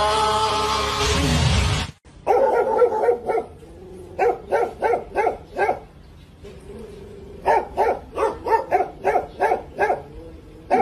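Singing over music for about the first two seconds, cut off abruptly. Then a dog barks in three volleys of quick barks, with short pauses between them.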